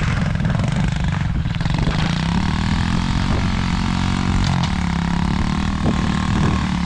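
Tao Tao 85cc pit bike engine running and revving, its pitch rising about two seconds in and then holding high.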